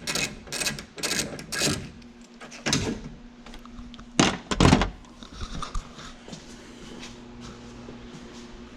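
A series of clunks and knocks from a 1990s Ford truck door as the old side mirror is worked loose and taken off by hand after its bolts are out, with the two loudest knocks about four to five seconds in, then quieter handling.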